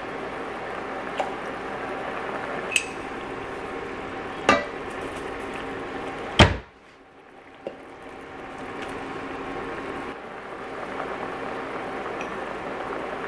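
Barbecue sauce simmering and bubbling with oil in an enamelled cast-iron pot, giving a steady sizzle. Utensils knock sharply against the pot four times, the loudest about six seconds in. Just after that knock the sizzle drops away briefly and then builds back up.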